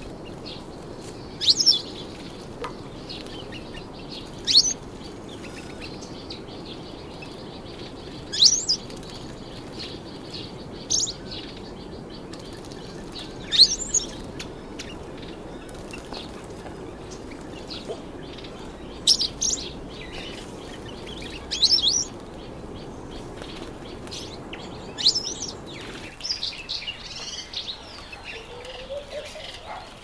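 Streaky-headed canary and other small birds bathing in a bird bath: short bursts of splashing and wing fluttering every few seconds, with high chirps, over a steady low background hiss.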